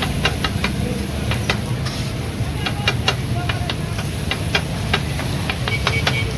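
Metal utensils clinking sharply against a cooking pan at irregular intervals, over a steady hiss of food cooking and a low rumble.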